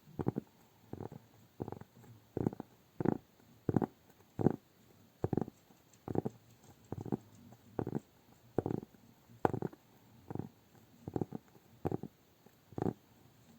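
Hands slick with cream pressed together and pulled apart in a slow, even rhythm, a soft wet squelch about every three quarters of a second.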